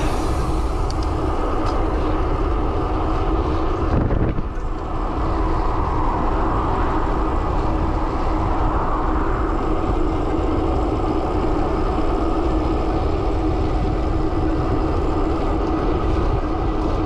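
Steady, loud wind rush on the handlebar camera's microphone, with a steady hum from the road bike's tyres on asphalt, as the bike rides fast downhill.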